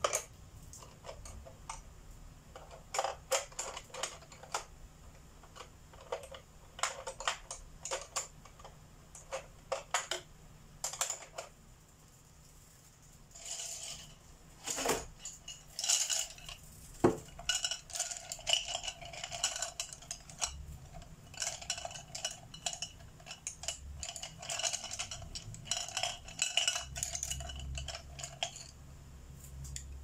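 Wooden colored pencils clinking and clattering against each other and against a ceramic pencil pot as a hand rummages through them. The first half holds scattered single clicks; from about halfway the clatter becomes dense and ringing, then stops just before the end.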